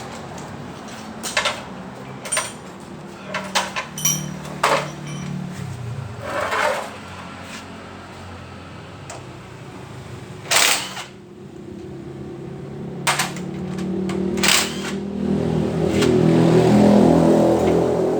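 Metal tools and parts clanking and knocking in a string of sharp, irregular strikes as an Isuzu Panther manual transmission is stripped down. A louder, steady machine drone builds up over the last few seconds.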